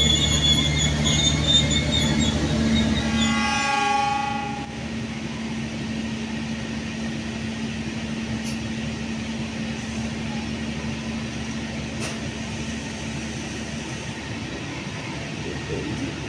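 Passenger train coaches rolling past on the rails, with thin high wheel squeal over a low drone in the first few seconds. A short train horn blast comes at about four seconds. After that the sound settles to a steady, quieter rolling of the coaches with an occasional wheel click.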